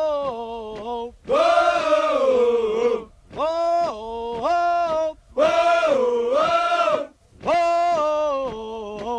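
Intro music: a voice singing a chant-like melody with no beat, in phrases about two seconds long with short breaks between them. Each phrase holds a few steady notes that step up and down.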